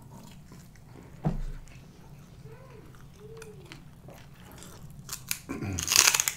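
Close-miked eating: quiet chewing with a soft thump about a second in, then a run of crisp, loud crunching bites into a raw celery stick near the end.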